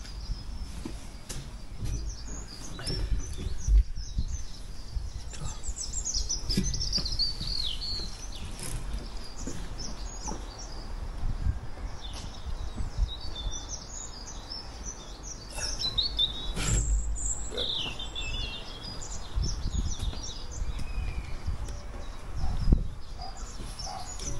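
Birds chirping and singing in short, quick phrases over a steady low rumble. A few sharp knocks stand out, the loudest about four seconds in and another near the end.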